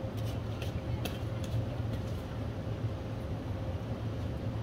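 Bus running, heard from inside the cabin: a steady low engine hum with a faint steady whine above it and a few light rattles in the first second and a half.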